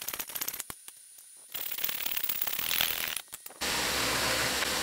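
A hand hacksaw cuts steel held in a vise in two spells of rapid rasping clicks. About three and a half seconds in, a 2x72 belt grinder starts grinding steel with a steady loud hiss over a low hum.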